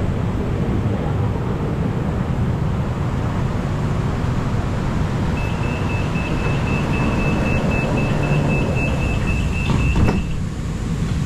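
Door-closing warning of a Bangkok MRT Yellow Line monorail car: a rapid high beep repeats at one pitch for about five seconds, ending in a thud as the doors shut about ten seconds in, over the steady low hum of the stopped train.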